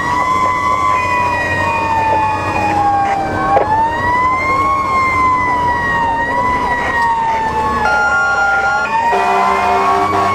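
Fire engine's electronic siren on a slow wail, its tone rising and falling over and over, heard from inside the cab over the truck's engine. Near the end, steady horn blasts sound over the siren.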